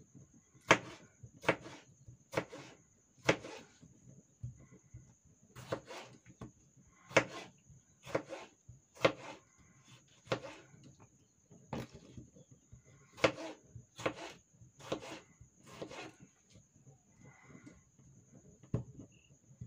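Kitchen knife slicing through tomatoes and knocking against a plastic cutting board, sharp single chops about one a second with a couple of short pauses. A faint steady high-pitched whine runs underneath.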